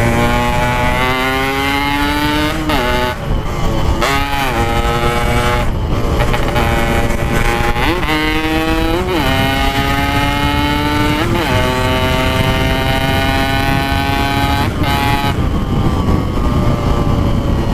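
Yamaha RX-King 135cc two-stroke single-cylinder motorcycle, fitted with a Packing Power exhaust, being ridden on the road. Its pitch climbs slowly and steadily, broken several times by brief swoops up and down as the throttle changes, over a low rumble of wind and road noise.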